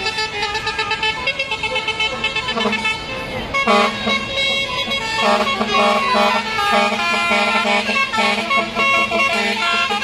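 Lorry telolet air horns sounding a tune: several pitched horn notes held together and switching in steps, louder from about four seconds in.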